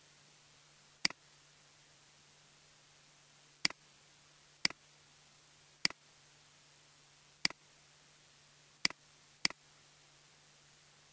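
Seven sharp computer mouse button clicks at uneven intervals, each a quick press-and-release, over a faint steady low hum and hiss.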